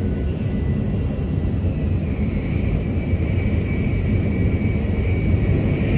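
Steady rumble and hiss of a Tokaido Shinkansen running at speed, heard from the deck between cars, with a faint high whine coming in about two seconds in.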